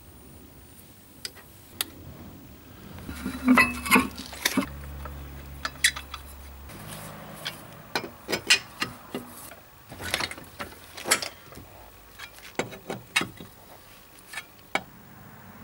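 Irregular sharp metal clinks and knocks of a cross-shaped lug wrench's socket going onto and turning the nuts of a steel wheel. A low steady hum runs underneath for a few seconds in the first half.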